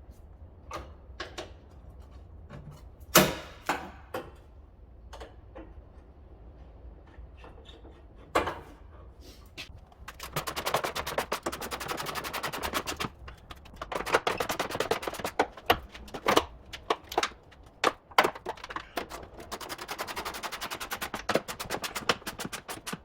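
Workshop tool noise: scattered sharp knocks and clicks, then three bursts of fast rattling from a power tool, each lasting a few seconds.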